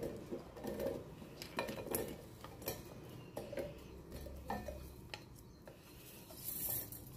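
Sliced onions being dropped by hand and tipped from a plate into a stainless steel mixer-grinder jar: scattered light taps and clinks against the steel, irregular and faint.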